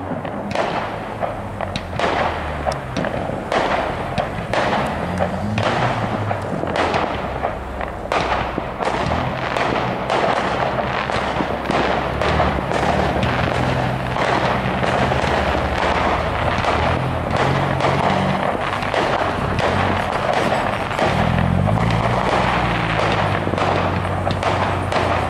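Aerial fireworks going off, a run of bangs and crackles that comes thicker after the first several seconds, with music playing steadily underneath.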